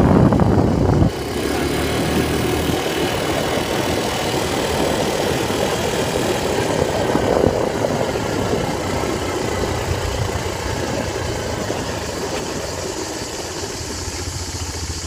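Quad bike engine running while riding, with wind rushing on the microphone. The wind noise is loudest at first and drops off sharply about a second in, after which the engine runs on steadily and a little quieter toward the end.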